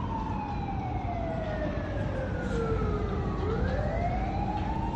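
Fire engine siren in a slow wail: its pitch falls steadily for about three seconds, then rises again near the end, over a steady low background rumble.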